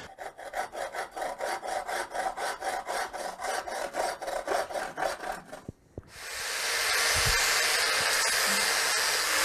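A hand tool scraped back and forth across a soapstone (talc) block in quick, even strokes, about six a second. About six seconds in, an angle grinder starts up and runs steadily against the soapstone, a continuous hiss with a faint motor hum.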